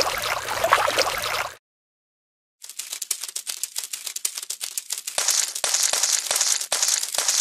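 Dubbed stop-motion sound effects of wet mud: dense wet crackling that cuts off dead about a second and a half in. After a second of silence comes a busy run of fine, rapid crackling clicks.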